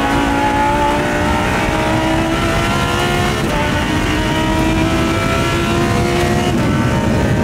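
Lamborghini Huracán Super Trofeo Evo race car's V10 engine, heard from inside the cockpit at speed. Its note rises steadily as it pulls, with upshifts dropping the pitch about three and a half and six and a half seconds in.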